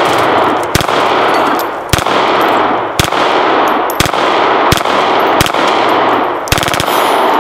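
Semi-automatic VZ 61 Skorpion in .380 being bump-fired: single shots roughly a second apart, then a rapid burst near the end, each shot echoing. A ringing tone starts just after the burst and fades out.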